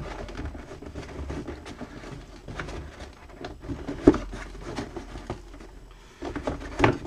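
Hands handling a cardboard box and its molded pulp packaging insert: scraping and rustling with scattered light knocks, a sharper knock about four seconds in, and louder handling near the end.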